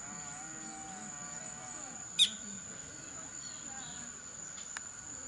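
Outdoor ambience of a steady high-pitched insect trill with faint distant voices. About two seconds in, one sharp, brief bird chirp falling in pitch stands out as the loudest sound.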